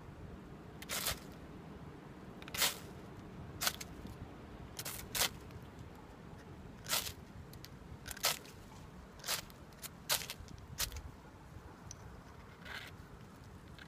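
Ferrocerium rod struck again and again, about ten short sharp scrapes spaced roughly a second apart, throwing sparks onto pine feather-stick shavings to light them.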